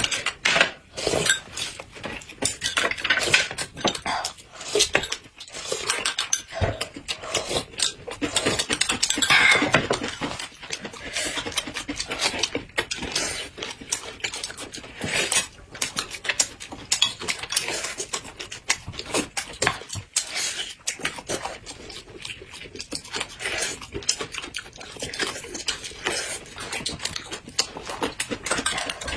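Close-miked eating: crisp bites and chewing of raw green bell pepper and fried flatbread, with a spoon and chopsticks clinking on a glass cup and dishes.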